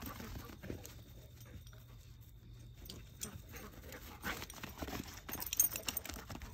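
Two large dogs playing: scattered soft thuds and scuffs of paws on sandy dirt, with a burst of quick light clicks about five and a half seconds in.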